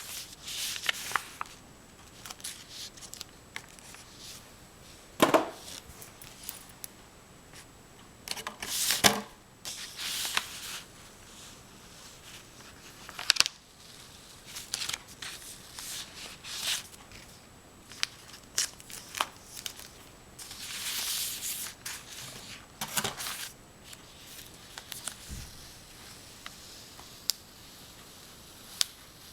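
Irregular scratchy strokes on paper, some short and sharp, a few lasting about a second, from oil pastel being worked and scraped across the drawing.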